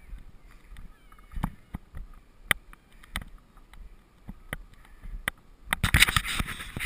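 Dog sled sliding over snow: a faint hiss from the runners, with irregular knocks and rattles about once a second as the sled bumps along. A louder scraping rush starts about six seconds in.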